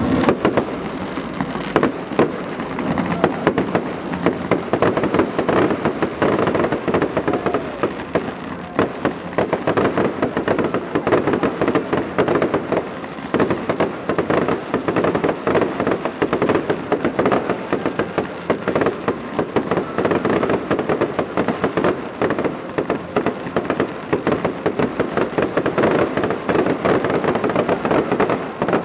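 Fireworks finale: aerial shells going off in rapid, overlapping bursts with crackling, without a break.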